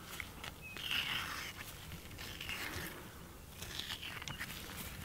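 Knife cutting through a wild pig's belly hide and tissue while gloved hands work the carcass open: a few faint, short scraping strokes with small clicks.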